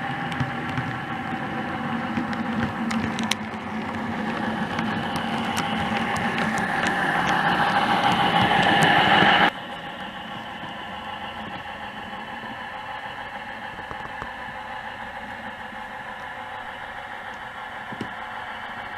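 Model diesel multiple unit running on the layout, its DCC sound decoder playing a diesel engine sound over the clatter of the wheels on the track. It grows louder as the train comes closer, then drops abruptly about halfway through to a quieter, steady running sound.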